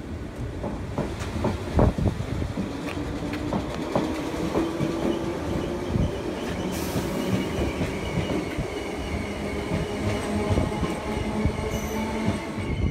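Merseyrail Class 508 electric multiple unit pulling away beneath the footbridge. Its traction motors whine, climbing in pitch over the first few seconds and then holding steady, and a few wheel clicks over rail joints come a couple of seconds in.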